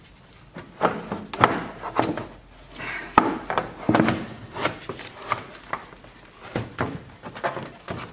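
A plastic air intake duct is twisted and pulled off a V8 engine, where it is stuck a little. The sound is a string of about ten irregular knocks and thumps with rubbing in between.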